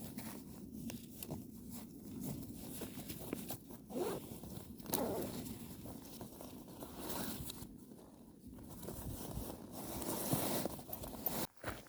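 A zipper being pulled on camping gear, among irregular rustling and scraping of fabric and kit.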